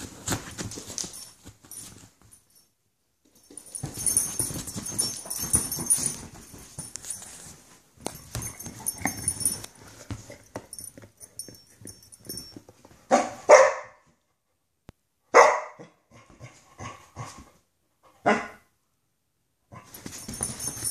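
Two Vizsla dogs play-fighting on a couch: scuffling and rustling in stretches, then loud play barks, two close together past the middle, another a couple of seconds later, and a short one near the end.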